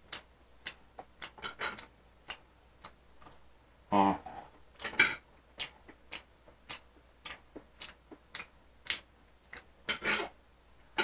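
A person eating a hamburger: quiet, irregular small clicks of chewing and mouth noise, a few a second, with a brief low mouth sound about four seconds in.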